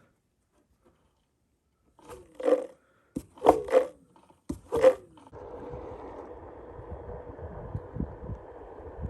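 An animal calling in four or five short, loud cries, each with a falling pitch, about two seconds in. It is followed by a steady outdoor rush of noise from about halfway.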